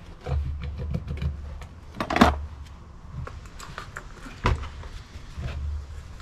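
Knocks, clunks and rattles of a petrol chainsaw and an oil bottle being handled on a workbench, with a loud knock about two seconds in and a sharp click about four and a half seconds in.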